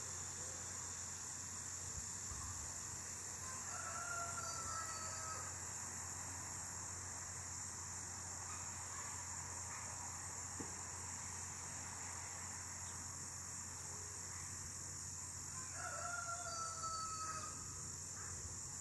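A rooster crowing twice, about four seconds in and again near the end, each crow slightly falling in pitch, over a steady high-pitched cricket drone.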